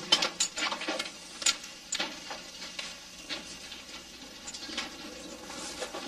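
Irregular clicks and knocks of equipment being handled and passed between people. They are densest in the first two seconds, then fewer and fainter.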